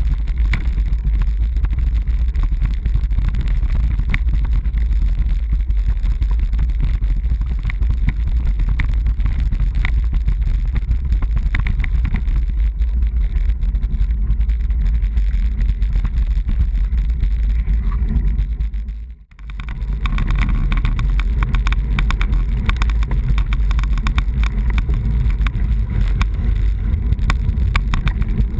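Wind rushing over a bike-mounted camera's microphone, with steady road rumble and rattling from a road bike riding over cobblestones and then smoother pavement. The sound drops out for a moment about two-thirds of the way through.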